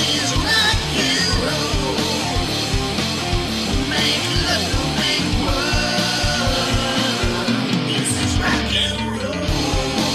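Background music: a song with singing over a steady drum beat.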